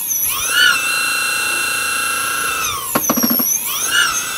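Electric bike's rear hub motor, run by an APT 96350 controller in its third speed mode, whining as the raised wheel spins free under throttle. The whine sags and climbs again in pitch as the throttle is eased and reopened, with a brief run of rapid ticks about three seconds in as it slows.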